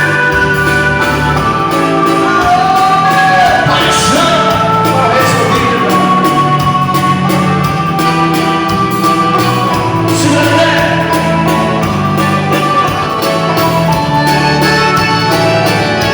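Live dance music with a singer: a duo playing a waltz, with sustained melody lines over a steady beat.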